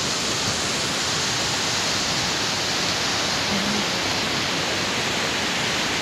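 Nuranang Falls, a 100 m waterfall, heard as a steady, even rushing roar of falling water.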